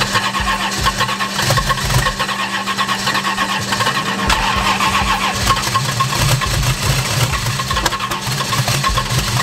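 Starter cranking the frozen twin-turbocharged Mustang's engine in sub-freezing cold, a rhythmic churning as the engine tries but does not catch. The owner puts the hard start down to a tune never set up for such low temperatures.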